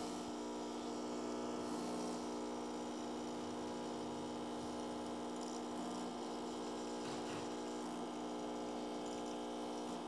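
Lelit Anna 2 espresso machine's vibratory pump running with a steady hum while pushing water through the coffee at about 9 bars during an espresso extraction.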